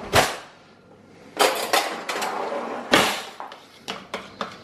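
Kitchen handling sounds: a sharp knock at the start, then scraping and clatter, then a metal spoon stirring sauce in a plastic tub, clicking against its side about four times a second near the end.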